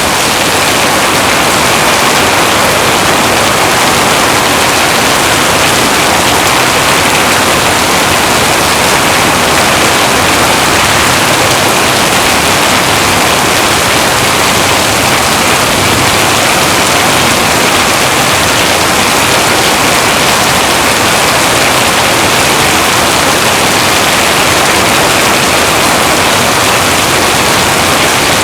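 Heavy rain pouring steadily, a dense even hiss with no breaks or distinct drops.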